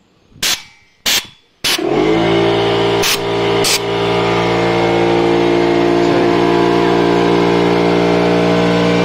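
Three short blasts of compressed air from a blow gun in quick succession, then a Stanley air compressor's motor starts, rising briefly in pitch before it settles into a loud steady run as it kicks in to refill its tank. Two more short air blasts, about a second apart, come soon after it starts.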